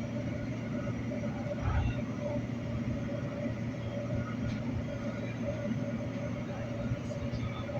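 Light rail train running between stations, heard from inside the car: a steady low rumble with a steady whine over it, and a brief low thump about two seconds in.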